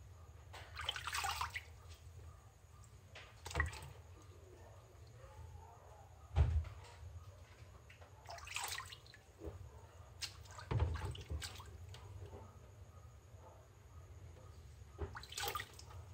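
Water splashing and sloshing in a plastic basin as two smartphones are rubbed and swished through it by hand, in several short separate bursts. A dull knock comes about six seconds in.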